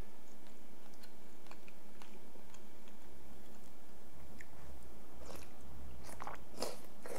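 Light clicks of chopsticks and a soup spoon in a bowl of pho, then a person slurping broth from the spoon a few times in the last couple of seconds.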